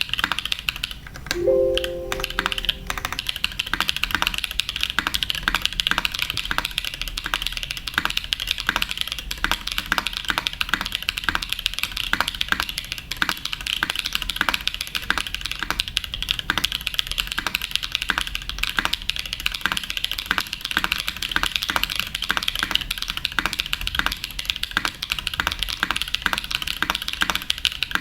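Clacky keystrokes on a TGR 910 Re clone mechanical keyboard, typed quickly and steadily. A brief low ringing tone sounds about two seconds in.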